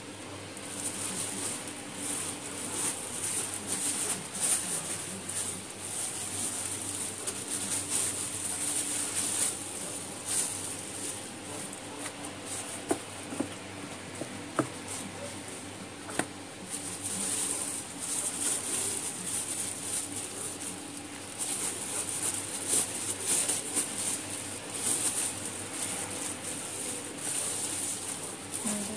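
Thin plastic carrier bag rustling and crinkling on and off as hands work raw chicken pieces and marinade inside it, with a hand scraping marinade out of a bowl.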